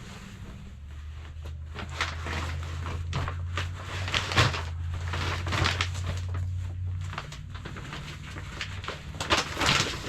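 Rustling, scraping and knocking as items are handled and moved, irregular and close by, over a low steady hum that stops about seven seconds in.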